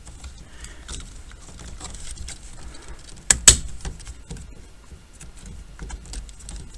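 Light plastic handling clicks and rattles as a new multi-function switch is fitted to a steering column, with one sharp snap about three and a half seconds in as it clips into place.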